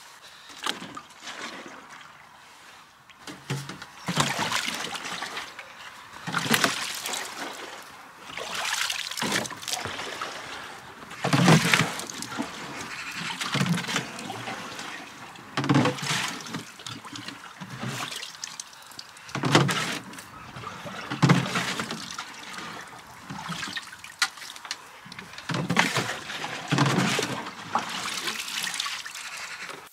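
Water being scooped out of a small sunken pond with a watering can and poured off into other containers: splashing and gurgling in repeated bursts about every two seconds.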